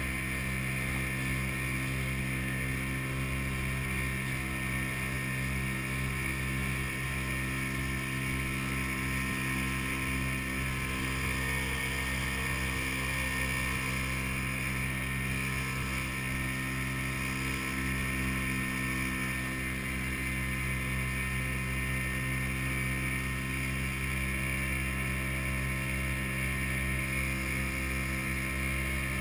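Outboard motor of a small aluminium skiff running steadily under way, a constant engine hum that holds the same pitch throughout.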